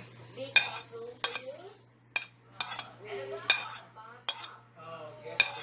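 A spoon knocking and scraping against a bowl, about eight sharp, irregular knocks, as boiled potato chunks are added to the potato salad mixture.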